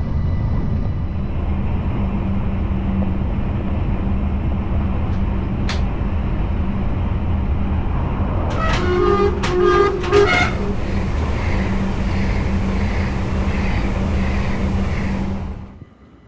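A Dutch train running with a steady loud rumble. About nine seconds in, its horn sounds in a few short blasts lasting under two seconds. The sound cuts off suddenly near the end.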